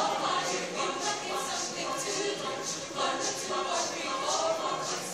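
Mixed choir singing a cappella, with crisp rhythmic consonants repeating about three times a second over sustained voices.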